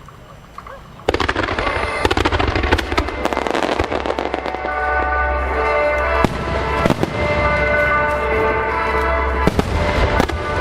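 Large fireworks display: from about a second in, a dense barrage of booming bursts and crackles, with music playing alongside, its held notes coming in around the middle.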